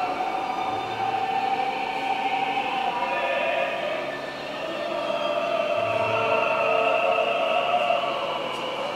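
The video installation's soundtrack: music of long, held choir-like voices whose pitches slowly slide up and down.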